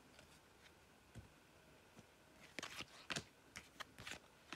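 Topps Turbo Attax F1 trading cards being handled and flipped through one by one: faint scattered card clicks and slides, several in quick succession from about two and a half seconds in.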